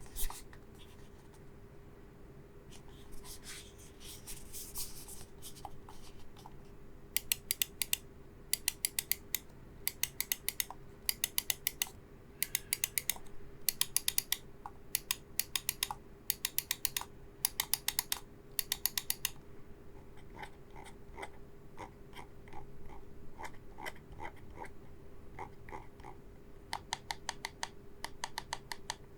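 Sony INZONE Mouse-A gaming mouse: a few seconds in, brief scratchy handling noise. Then about ten short bursts of rapid, sharp clicking follow, and then a run of quieter, duller, evenly spaced clicks. A faint steady hum sits underneath.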